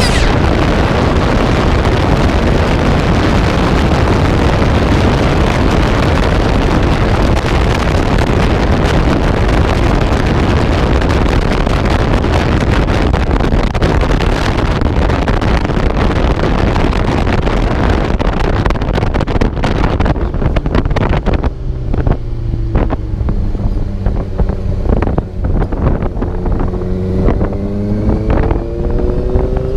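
Heavy wind buffeting on a GoPro action camera's microphone while riding a Honda CBR650F, drowning out almost everything. About twenty seconds in the wind drops and the bike's inline-four engine comes through, its pitch climbing near the end as it accelerates.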